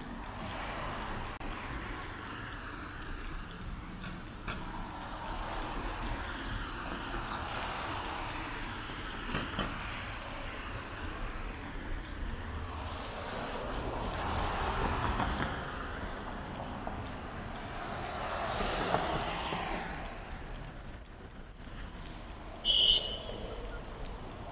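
Road traffic on a busy city avenue: a steady roar of passing cars and trucks, swelling as each vehicle goes by. A brief loud burst comes near the end.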